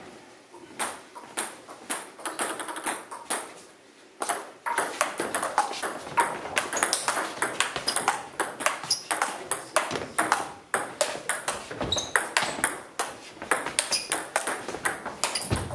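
Table tennis ball clicking off the bats and bouncing on the table during a rally. A few scattered bounces come first, then from about five seconds in a quick, continuous run of hits and bounces lasts until near the end.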